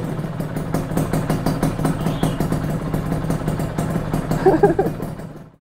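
Honda Nova Dash 125's single-cylinder two-stroke engine idling with a rapid, uneven pulsing beat, fading out near the end.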